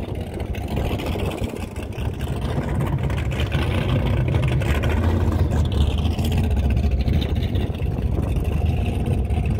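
Motorboat engine running with a steady low rumble that grows louder about two seconds in.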